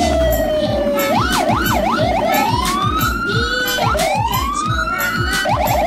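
Siren sound effect, alternating slow rising and falling wails with quick up-and-down yelps, over a backing track with a steady drum beat.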